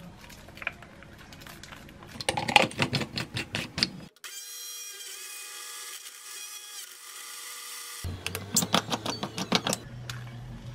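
Clicks and knocks as the jar is handled and set onto an electric retro blender, then the blender's motor runs with a steady high whine for about four seconds and stops. More clatter follows near the end as the jar is taken off and the drink is poured.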